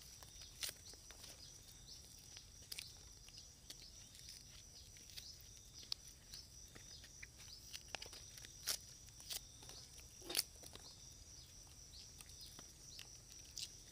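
Faint crackling and scattered clicks as the charred skin and fur are peeled off a grilled rat by hand, with a steady faint high whine in the background.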